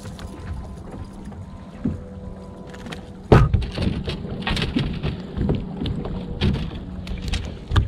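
Steady hum of a bass boat's electric trolling motor. About three seconds in there is a sudden loud thump, then scattered knocks and rustles and one more sharp knock near the end.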